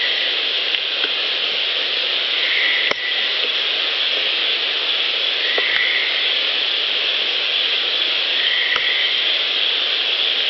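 Steady hiss of an amplified field recorder's playback. A short, faint high call repeats about every three seconds, with a few faint clicks.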